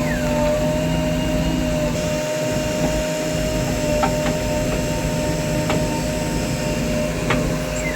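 Heavy diesel machinery engine running steadily with a constant whine over it, and a few sharp knocks about halfway through and near the end.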